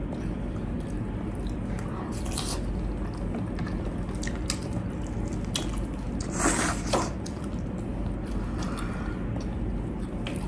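Close-up eating sounds: wet chewing and small mouth clicks, with a louder crisp bite into fried chicken about six and a half seconds in.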